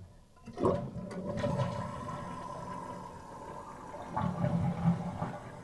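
American-Standard toilet flushing: the tank water rushes out through the flush valve, starting suddenly about half a second in, running steadily, and growing louder again about four seconds in. It is a test flush with a newly fitted universal flapper.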